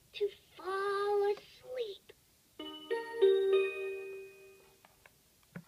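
Fisher-Price Laugh & Learn Counting with Puppy Book's electronic voice singing a short phrase, then a short tune of held electronic notes that fades out. A brief click comes just before the end.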